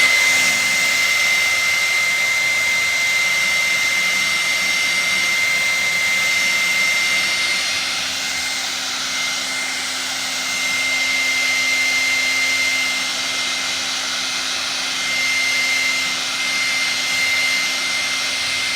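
Hand-held hair dryer running steadily: a high, constant motor whine over the rush of blown air.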